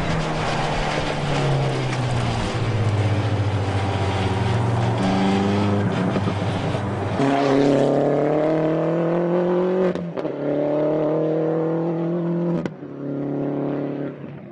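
MINI John Cooper Works Coupé Endurance race car's turbocharged four-cylinder engine running hard on track. Its note climbs in several pulls that break off about seven, ten and thirteen seconds in.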